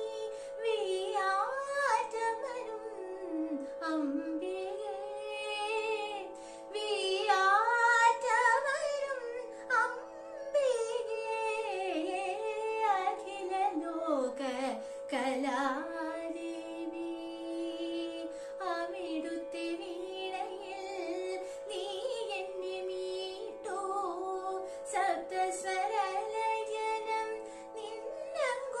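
A woman singing a Carnatic devotional song solo, her voice gliding and bending through ornamented phrases over a steady drone that holds the same notes throughout.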